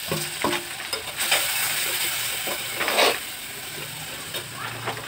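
Thin plastic cooking-oil packet crinkling and rustling as it is squeezed and handled, with louder crackles about a second in and again about three seconds in.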